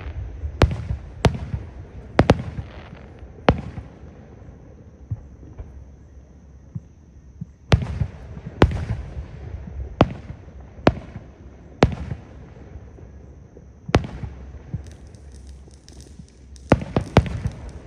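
Fireworks shells bursting overhead: about a dozen sharp bangs at irregular intervals, with a lull of about four seconds after the first few, and crackling near the end.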